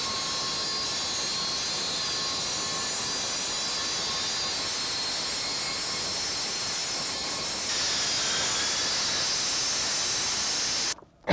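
Milwaukee MX Fuel cordless cut-off saw running steadily, its diamond blade dry-cutting through an 8-inch poured concrete foundation wall. It cuts off abruptly just before the end.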